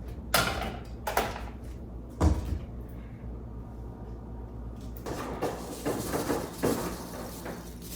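Kitchen handling: a few knocks and a dull thud as a cooking pot is picked up and set down, then a few seconds of uneven pouring noise as the pot is filled with water and salted for boiling pasta.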